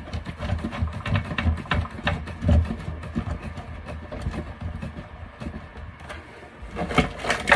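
Plastic cable gland nut being screwed down tight by hand on a weatherproof enclosure: irregular small clicks and rubbing of plastic parts over low handling bumps, with a few louder clicks near the end.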